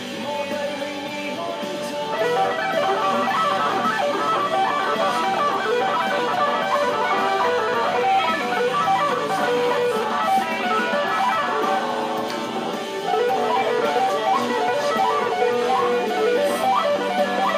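Electric guitar playing a fast lead solo: rapid runs of picked single notes, getting louder about two seconds in.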